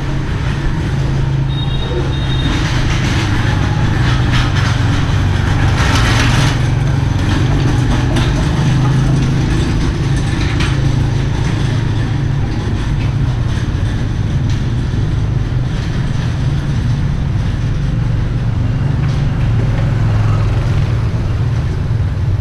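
Steady low rumble of city street traffic and ambience, with a brief louder rush of noise about six seconds in.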